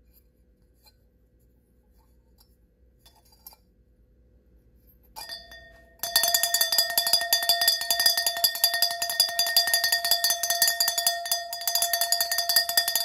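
Small Harmony Bell, a cylindrical metal cowbell-style bell with a hanging clapper, shaken by its top ring: a single clank about five seconds in, then from about six seconds rapid, continuous clanging with a steady ring.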